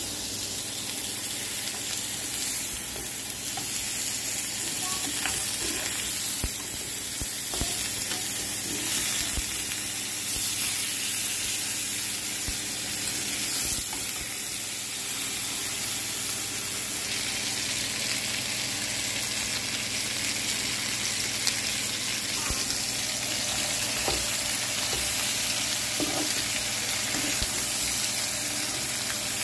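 Beef short ribs sizzling steadily in a hot nonstick frying pan, with a few light clicks and knocks as the meat is handled in the pan.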